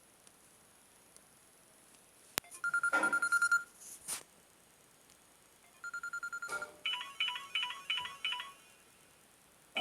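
Samsung Galaxy J1 2016 ringtones playing in turn. A sharp click comes first, then a short spell of rapid electronic beeping on one high pitch, which returns briefly near the middle. A quick repeating pattern of short chiming notes follows and stops over a second before the end.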